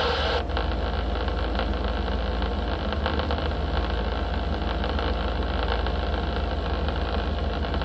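CB radio receiver hissing with open-band static between transmissions, over a steady low hum. A click about half a second in marks where the last signal drops out and the plain static takes over.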